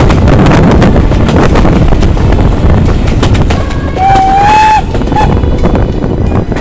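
Steam tank locomotive and carriages running along the line, heard from the carriage window, with a short steam whistle blast about four seconds in, lasting under a second.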